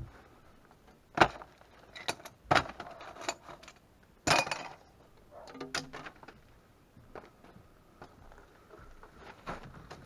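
Handling noises around a water heater and hand tools: a string of sharp knocks and clunks, the loudest about four seconds in, with scraping and rustling between.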